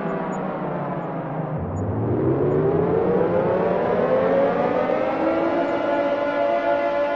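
Air-raid siren wailing: its pitch falls for the first second and a half, then rises over about four seconds and holds steady at the top.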